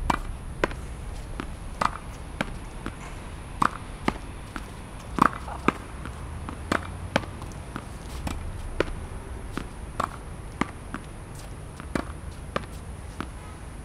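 Tennis ball being hit against a practice wall: sharp knocks of racket strikes, wall rebounds and bounces, often in pairs about half a second apart, repeating every second and a half or so in a steady rally. A low rumble runs underneath.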